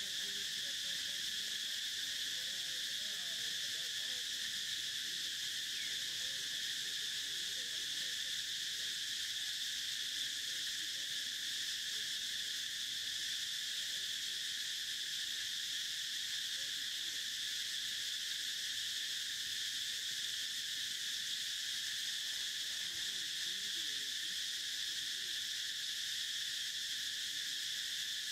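Steady chorus of insects, a continuous high-pitched drone that holds at one level without a break.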